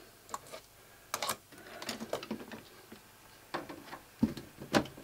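Scattered light clicks and taps of a screwdriver working the screws in the metal rear panel of a DVD/VHS recorder, with two sharper taps near the end.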